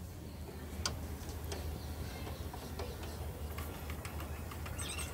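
Socket ratchet wrench clicking in scattered ticks as it works the 12 mm bolt of a scooter's rear shock absorber loose.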